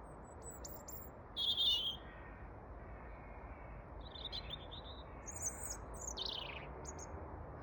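A robin singing in the dark: short, high, thin phrases with pauses between them, the loudest about a second and a half in and a quick falling note near the end. It is singing under street lights, which are taken to be fooling it into thinking it is daytime.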